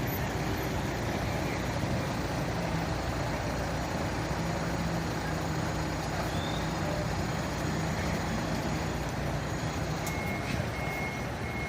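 Large fire truck's diesel engine running steadily at idle. About ten seconds in, a high reversing-alarm tone starts.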